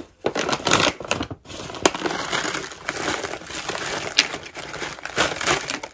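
Packaging and containers being handled: crinkling and rustling, with many small clicks and knocks.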